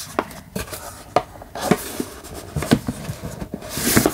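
Hands handling a paper book and its card packaging: a string of soft taps and rustles, then a longer swish near the end, like card sliding against card.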